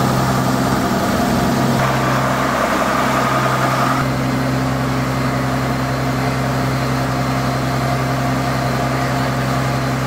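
An engine running steadily at idle, a constant low hum, with a brief higher whine added from about two to four seconds in.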